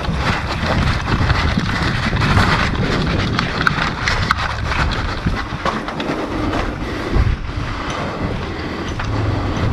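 Wind buffeting the microphone: a steady rumbling hiss with a few scattered sharp clicks and knocks.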